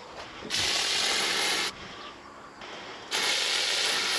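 Aerosol insecticide spray can discharging in two long hissing bursts, one starting about half a second in and one about three seconds in.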